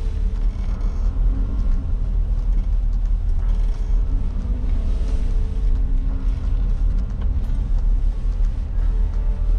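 Engine and road noise of a 1996 Suzuki Jimny JA22, heard from inside the cabin: a steady low rumble as it drives at low speed to park.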